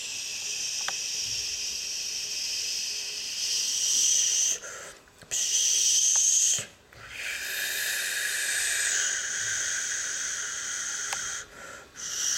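A mouth-made hissing "pssh" imitating a toy fire extinguisher spraying at a fire. It comes in a few long hisses broken by brief pauses.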